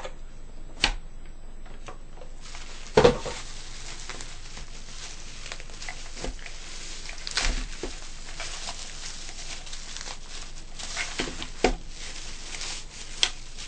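Packaging of a boxed battery charger being opened by hand: rustling and crinkling with scattered sharp clicks and knocks, the loudest about three seconds in.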